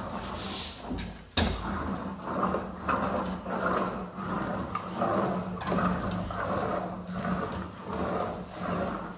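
Hand laminate roller pushed back and forth over a laminate sheet on a door, pressing it onto the tacky contact adhesive. The rolling strokes come about two a second over a steady low hum, with one sharp knock about a second and a half in.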